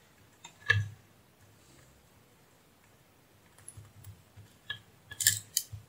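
Scattered clicks and taps from multimeter test probes and transformer wires being handled: a sharp knock about a second in, a few faint ticks, then a quick cluster of louder clicks near the end.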